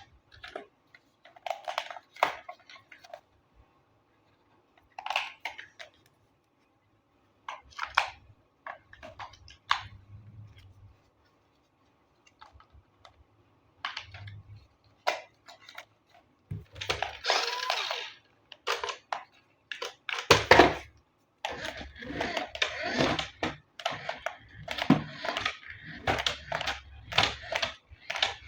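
Hands unboxing toys: scattered clicks, taps and rustling of packaging and toy parts being handled. Sparse at first, busier from about halfway, with longer stretches of rustling near the end.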